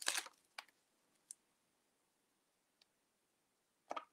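Handling an adhesive mesh stencil: a short rustle of the stencil sheet at the start, a few faint clicks, then another brief rustle near the end as it is laid onto the wooden board.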